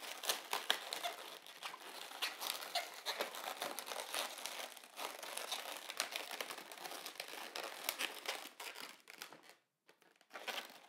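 Inflated latex modelling balloons rubbing and squeaking against each other and the fingers as a small black bubble is worked in between twisted white bubbles. The squeaks and crinkles come irregularly, with a brief pause near the end.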